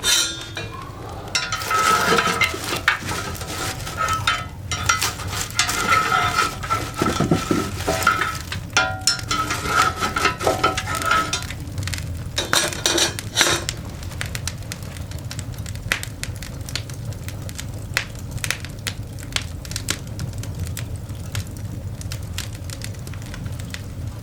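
Coal fire in a cast iron grate crackling and popping. For roughly the first half there is also louder metal clinking, knocking and scraping, with a thin steady tone running for about ten seconds. After that only lighter crackling clicks remain over a low steady rumble.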